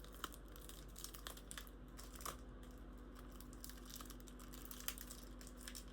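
Faint scattered clicks, taps and rustles of perfume boxes and packaging being handled, over a steady low hum.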